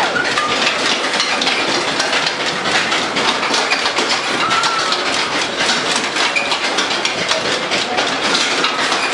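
A Whip fairground ride running, its cars rattling along their track in a steady, dense mechanical clatter.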